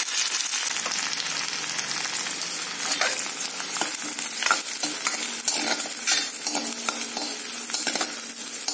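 Chopped onion sizzling as it fries in hot oil with mustard seed, cumin and garlic in a hammered metal kadhai. A steel spoon stirs it with frequent short scrapes and clicks against the pan over a steady hiss.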